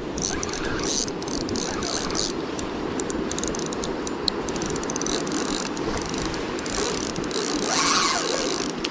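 Spinning reel being cranked steadily to reel in a hooked fish: the reel's gears whir with a fine, rapid ticking.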